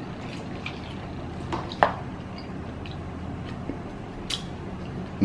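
Person eating instant ramen noodles with chopsticks: wet slurping and chewing, with a few short sharp clicks, the loudest a little under two seconds in.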